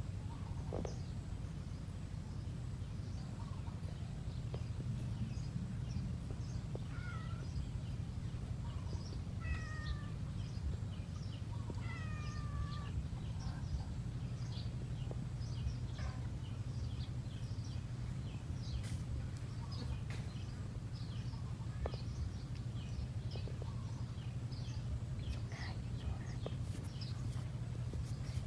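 Steady low rumble with scattered faint chirps. Three short falling calls stand out about 7, 10 and 12 seconds in.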